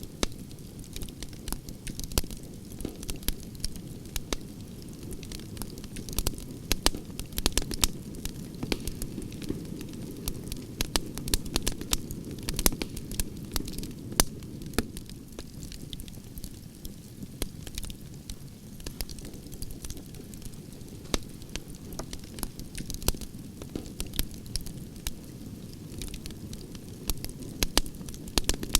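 Wood campfire burning, with a steady low rush of flame and frequent sharp crackles and pops from the burning logs.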